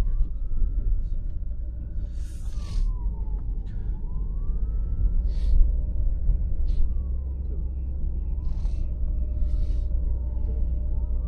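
A siren wailing slowly up and down, one rise and fall every three to four seconds, over the steady low rumble of a vehicle's engine and road noise heard from inside the cabin. Short bursts of hiss come and go a few times.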